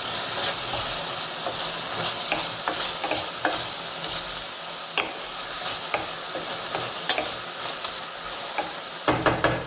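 Food sizzling steadily in a hot frying pan, with scattered clicks and scrapes of a utensil stirring it and a few louder knocks near the end.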